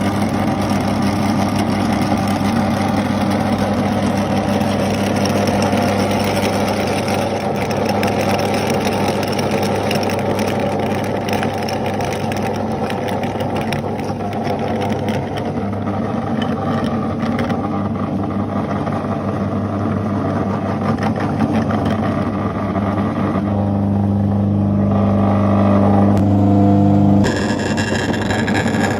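Electric meat grinder motor running with a steady hum. For a stretch in the first half it crackles and crunches as material is forced through it. The hum grows louder a little before the end, then the sound changes abruptly.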